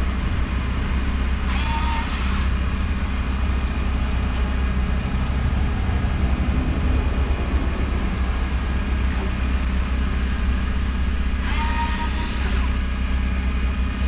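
A steady low mechanical hum, with two short bursts of a higher whirring hiss about ten seconds apart.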